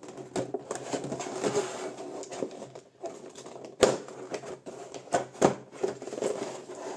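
Clear plastic blister tray of a boxed collectible figure being handled and lifted out of its cardboard box: crinkling and clicking plastic, with a sharp knock about four seconds in and two more a little after five seconds.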